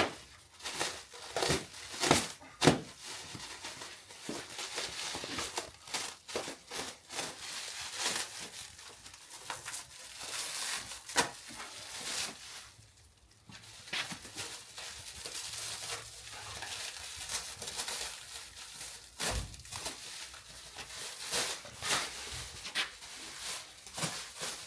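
Plastic packaging wrap being crinkled and torn off during unpacking: irregular crackles and rustles, with a brief lull about halfway through.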